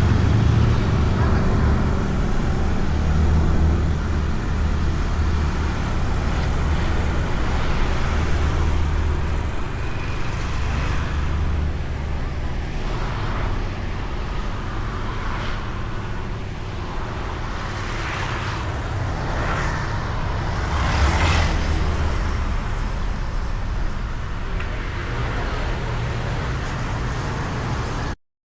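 Honda Beat scooter under way in traffic, heard from a camera mounted on the bike: a steady low engine and road rumble with a wash of wind and tyre noise. Other vehicles pass now and then through the middle stretch. The sound cuts out for a moment just before the end.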